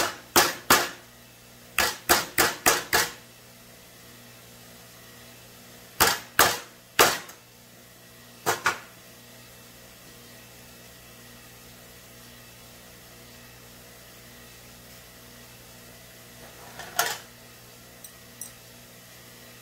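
Hammer blows on a bent steel engine push rod laid on a wooden block, straightening it: about a dozen sharp strikes in quick runs over the first nine seconds. A brief clatter follows near the end.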